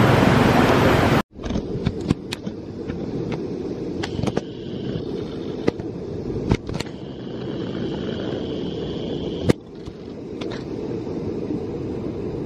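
Steady rushing noise of a fast-flowing river, loud for about the first second, then after an abrupt cut a lower rumble with wind on the microphone and a scattering of sharp clicks.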